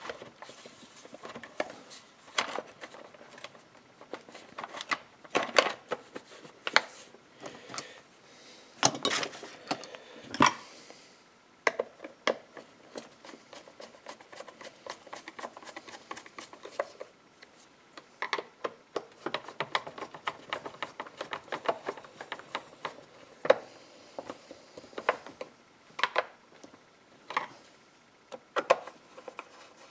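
Hard plastic clicks and knocks as a chainsaw's top cover is pressed into place and screwed down with a screwdriver: irregular taps and clatter, with a run of quick ticks about two-thirds of the way through.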